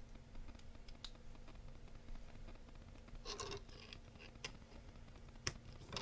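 Faint handling noise of jumper wires and a headphone adapter plug being fitted to an Arduino board's header: small scratches and scattered clicks, with a short rustle about three seconds in and a sharp click near the end, over a faint steady hum.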